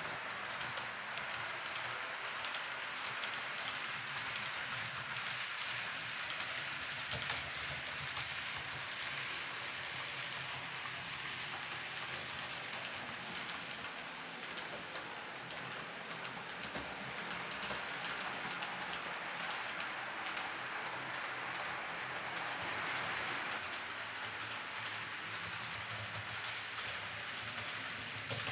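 ROCO H0-scale intermodal model train rolling along the layout's track: a steady rattling hiss of many small wheels running over the rails, swelling a little twice as the wagons pass closer.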